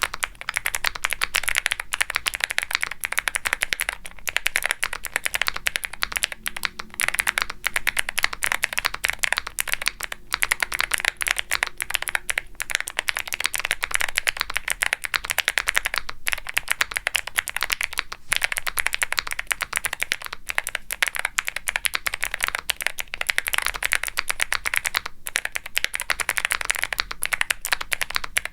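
Fast continuous typing on a Womier SK75 mechanical keyboard with factory-lubed Gateron Melodic clicky switches: a prominent, crisp click on each press, followed by a deeper pop as the key bottoms out on the polypropylene plate under GMK ABS keycaps.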